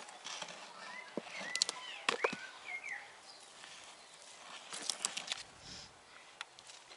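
Hands rummaging through loose potting mix and potato roots, with soft rustles and scattered small clicks and taps of plastic pots. A bird chirps briefly a few times between about one and three seconds in.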